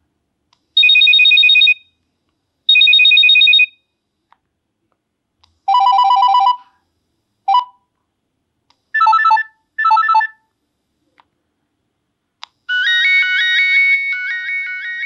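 Nokia 7650 stock alert tones played one after another: two trilling electronic beeps about a second long each, a lower tone, a short blip and a pair of short chirps. About two seconds before the end a ringtone melody of several notes starts and plays on.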